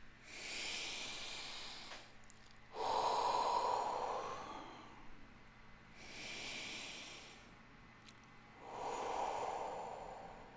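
A man taking slow, deep breaths as part of a guided breathing exercise. There are two full breaths, each a soft, hissy inhale of about two seconds followed by a louder, lower-sounding exhale.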